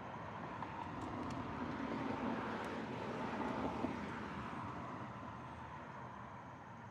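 A single road vehicle passing by. Its engine and tyre noise swells to a peak about halfway through, then fades away.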